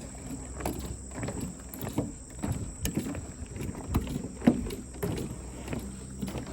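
Footsteps on wooden boards, about two steps a second, each step a short knock.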